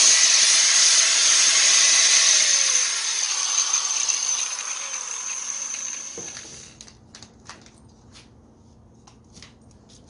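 Small electric angle grinder running free at full speed with a high motor whine, on a test run after its power cord was replaced. About three seconds in it is switched off and winds down over a few seconds, then there is a knock and a few light clicks.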